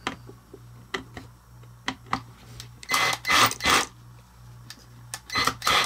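Screws being driven into a 3D-printed CNC part: a few light clicks, then short, loud bursts of tool noise about three seconds in and again near the end.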